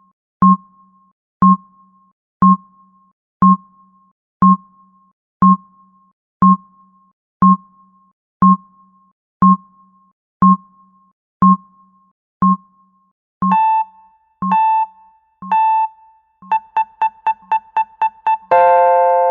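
Electronic countdown-timer sound effect: a short tick once a second, then three longer beeps a second apart for the final seconds, a quick run of about eight rapid ticks, and near the end a loud alarm tone of several notes at once that starts suddenly and slowly fades.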